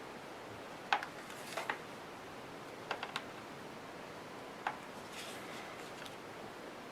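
A few light clicks and taps of small craft pieces being handled and set down on a tabletop, then a soft rustle, over a faint steady hiss.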